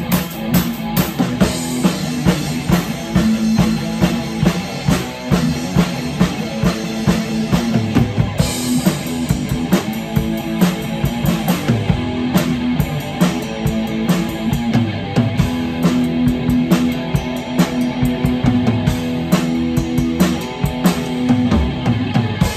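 A drum kit and a guitar played together live in a small room: steady kick, snare and cymbal hits over held guitar notes. The cymbals get busier and brighter about eight seconds in.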